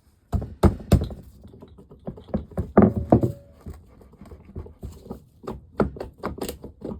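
Hammer tapping repeatedly on the stuck cylinder of a Gas Gas TXT 250 two-stroke engine, a dozen or more sharp metal knocks at an uneven pace, to free the cylinder from the crankcase.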